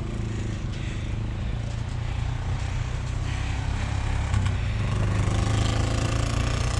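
A motor vehicle's engine running at a low, steady idle, picking up slightly in pitch and loudness from about four and a half seconds in.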